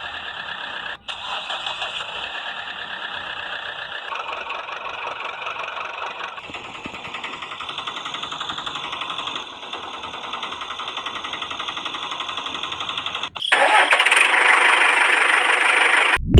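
A small motor running with a fast, buzzing rattle. It breaks off briefly about a second in, and again near the end, where it comes back louder.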